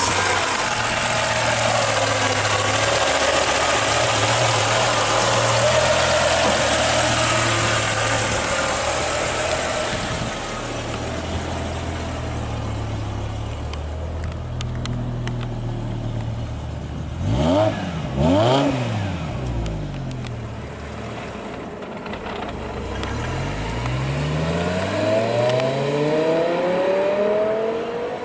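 BMW E60 M5's 5.0-litre V10 idling just after starting, its idle dropping over the first couple of seconds and then holding steady. About 17 seconds in it is revved twice, sharply up and down, and near the end its pitch climbs as the car pulls away under acceleration.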